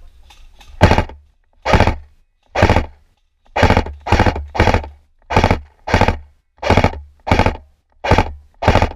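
Airsoft electric rifle firing single shots, about a dozen sharp thunks at an uneven pace of roughly one to two a second.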